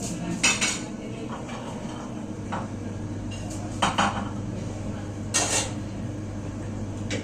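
Dishes and cookware clattering as they are handled: three short, sharp clanks and clinks about half a second, four and five and a half seconds in, over a steady low hum.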